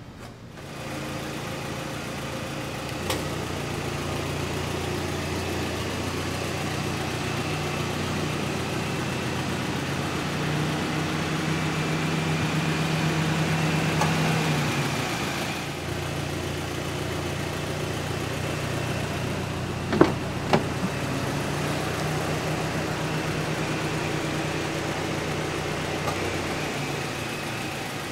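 A steady, low, engine-like hum that swells a little around twelve to fifteen seconds in. About twenty seconds in, two sharp clicks as the car's passenger door is unlatched and opened.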